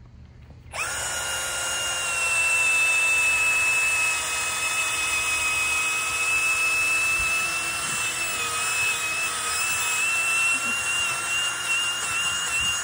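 Cordless drill running steadily with a long 3/4-inch, 18-inch bit, boring a hole straight down into the ground for an anchor spike. The whine starts about a second in, and its pitch wavers slightly later on as the bit works through the soil.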